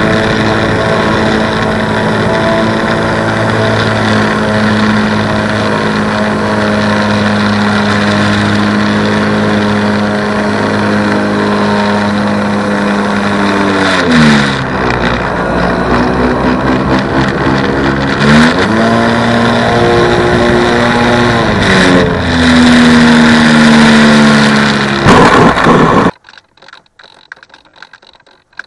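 RC model plane's motor and propeller, heard up close from a camera in the nose: a steady drone that twice drops in pitch as the throttle is pulled back and rises again. Near the end a couple of knocks come as the plane lands, the motor cuts off suddenly, and only faint ticking is left.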